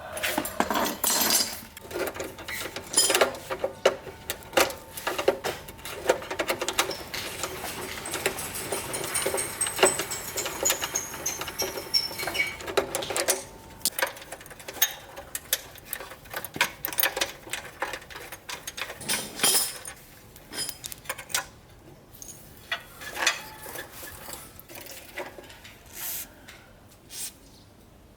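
Irregular metallic clinks, taps and rattles of hand tools and bicycle parts being worked on, busier in the first half and sparser later.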